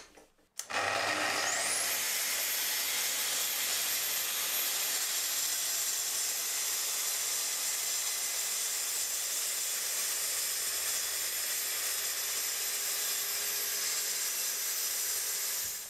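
A Festool plunge-cut track saw starts up with a high whine rising as the blade spins up, then runs steadily as it is pushed along its guide rail cutting through a solid wood tabletop. It stops shortly before the end.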